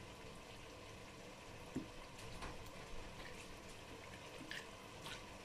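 Faint sloshing and small splashes of water in a glass bowl as noodles are pushed down into it to soak, with a few light ticks scattered from about a second and a half in.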